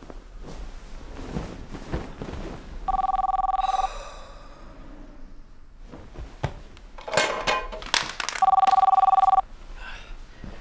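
Telephone ringing twice, each ring a two-tone trill about a second long, with bedclothes rustling between the rings as the phone is reached for.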